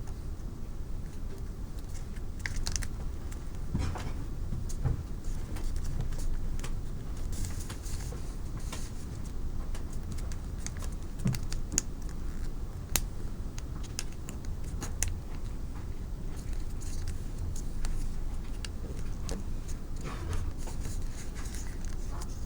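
Origami paper being handled, folded and creased by hand: soft rustling with scattered sharp crinkles and taps, over a steady low hum.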